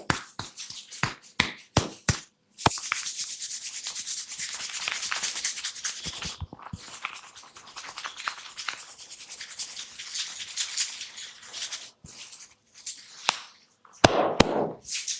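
Close-up hands working on a person's head: a quick run of sharp finger taps, then, from about two and a half seconds in, a long steady scratching and rubbing through the hair and scalp, and a louder rustling burst near the end.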